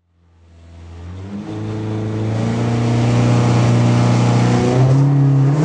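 Rally car engine heard from inside the cockpit, held at raised revs and stepping up in pitch twice, as at a stage start before launch. The sound fades in over the first couple of seconds.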